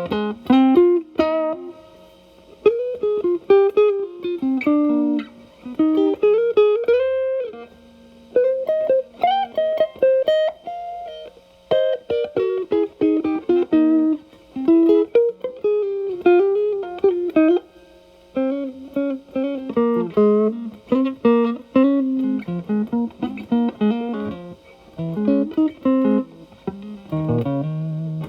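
Electric guitar, a Telecaster played through an E.W.S. Brute Drive distortion pedal set to gain 9 into a Marshall Valvestate's clean channel, playing bluesy single-note lead phrases with string bends. Short breaks separate the phrases.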